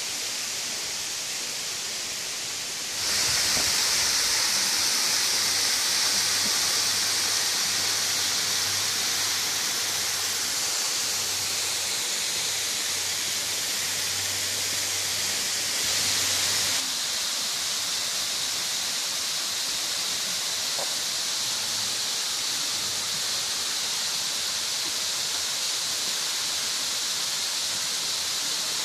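Waterfall rushing steadily: an even hiss of falling water. It gets louder and brighter about three seconds in and drops back a little about two-thirds of the way through.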